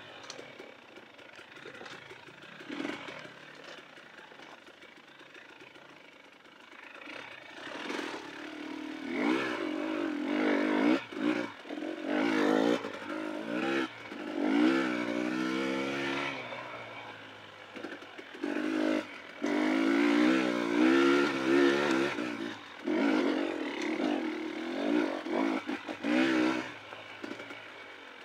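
KTM dirt bike engine revving up and down again and again as the throttle is opened and rolled off, its pitch rising and falling. It is quieter for the first several seconds and louder from about eight seconds in.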